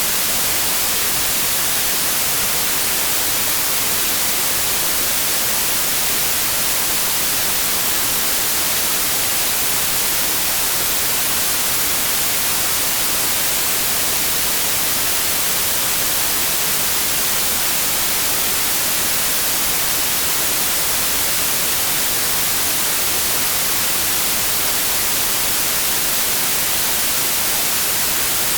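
Steady generated white noise: an even, hiss-like rush that is strongest in the treble and never changes in level or character.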